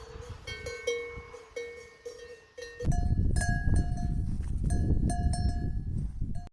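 Cowbells clanking irregularly as cattle move, each strike ringing on briefly. About three seconds in, a different, louder bell takes over over a strong low rumbling noise, which cuts off suddenly at the end.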